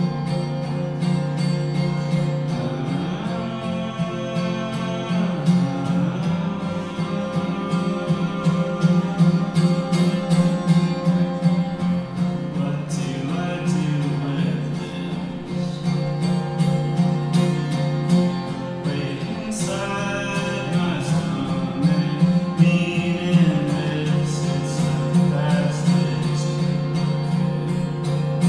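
Solo live acoustic song: a man sings in phrases of a few seconds over a steadily strummed acoustic guitar.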